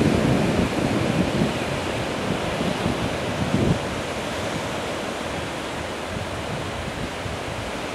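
Surf washing on the shore with wind buffeting the microphone, the low wind rumble strongest in the first few seconds and easing after about four seconds.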